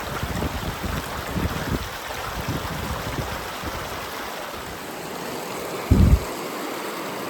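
Snowmelt stream flowing with a steady rushing hiss. Low rumbles in the first few seconds and a single short thump about six seconds in, the loudest moment.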